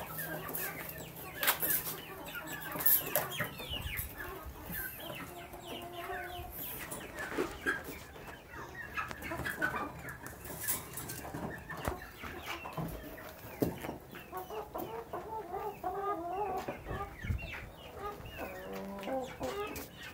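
Chickens clucking in many short, repeated calls, with scattered sharp knocks and clicks, the loudest in the first few seconds.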